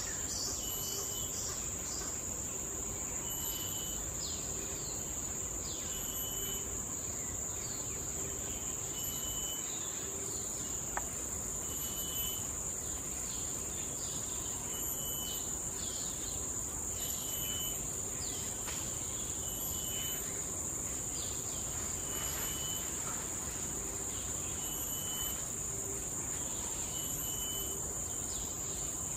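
Forest insects: a steady high-pitched drone with a short chirp repeating about every second and a half.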